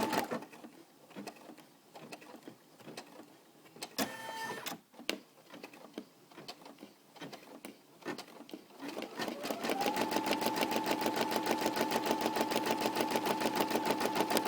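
Computerized embroidery machine stitching at a fast, even rhythm with a steady motor whine. It stops just after the start, leaving scattered clicks and a brief whir about four seconds in. About nine and a half seconds in it starts stitching again, running up to full speed.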